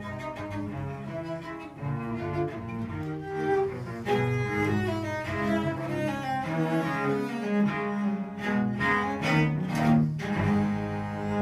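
Cello played with the bow, a flowing line of changing notes that settles onto a long held low note near the end.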